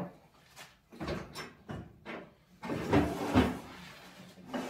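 Table saw being set up: a few knocks and clatters as metal fence parts are handled on the saw table, then a longer sliding scrape with two loud peaks about three seconds in, and another knock near the end.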